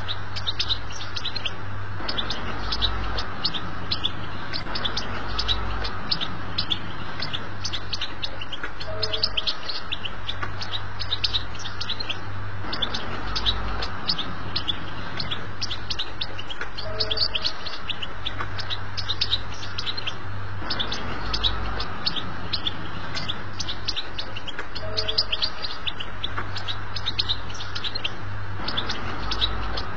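European goldfinch song, a fast run of short twittering chirps, of the 'betbeta' kind used to tutor goldfinch fledglings. The same phrase comes round about every eight seconds, over a steady low hum.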